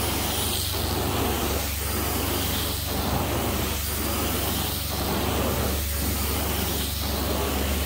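Carpet-cleaning extraction wand spraying and vacuuming with a steady rushing hiss over a constant low hum from the machine. The hiss dips briefly about once a second, in time with the wand's passes.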